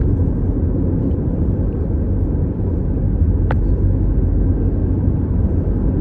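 Steady low rumble of a car driving at road speed, heard from inside the cabin, with one brief sharp click about halfway through.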